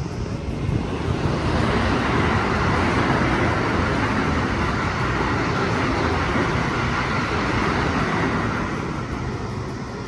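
A vehicle passing by: a loud, steady rushing noise that swells in about a second in, holds, and fades away near the end.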